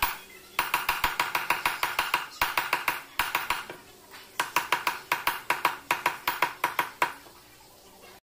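Ball-peen hammer striking a silver strip against the horn of a steel anvil, bending it for a ring. Rapid ringing metal blows, about seven a second, come in three runs with short pauses and stop about seven seconds in.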